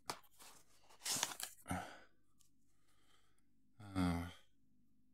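A man lets out one short voiced sigh about four seconds in. A brief rustle comes about a second in.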